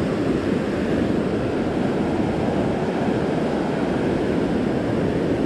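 Steady rush of water churning through a concrete drop in an irrigation canal.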